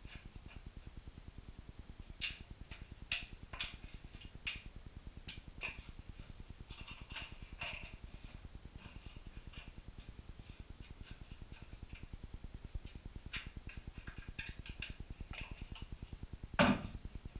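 Snips cutting and handling plastic corner bead: a dozen or so short, sharp clicks and snaps scattered through, with one louder knock near the end, over a steady low buzz.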